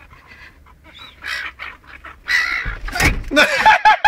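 A scuffle and a thump as a silver gull is grabbed by hand, then the caught gull squawking in rapid repeated alarm calls, about four or five a second, from about three and a half seconds in.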